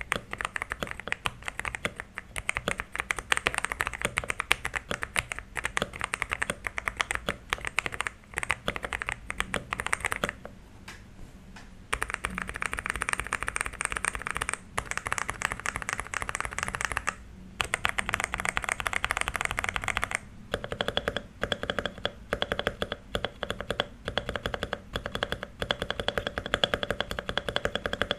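Xinmeng X87 gasket-mounted mechanical keyboard being typed on quickly as a sound test, giving a dense run of key clacks. There are brief pauses about ten and seventeen seconds in, and the sound changes character about twenty seconds in.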